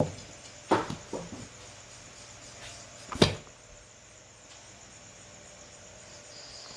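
A few sharp knocks and clatters of cookware being handled in a kitchen, the loudest about three seconds in.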